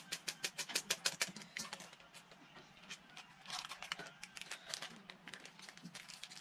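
Dry food crackling as it is crumbled by hand into a metal pot: a quick run of sharp crackly clicks through the first two seconds, then fewer, with another flurry a little past halfway.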